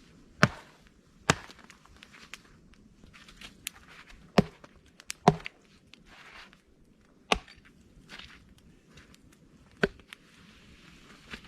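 A series of sharp knocks: about six loud ones at irregular intervals, with fainter clicks and rustling between them.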